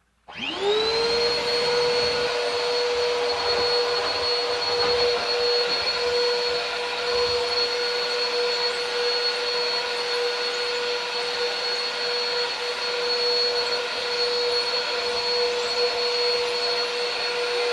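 Bissell PowerLifter Swivel Pet upright vacuum cleaner switched on: its motor whines up to speed within about half a second, then runs steadily with a high whine over a rush of airflow.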